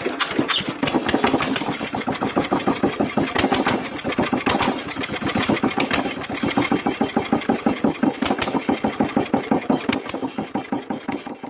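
Kubota RT140 single-cylinder diesel engine running steadily, an even, fast chug of about five beats a second.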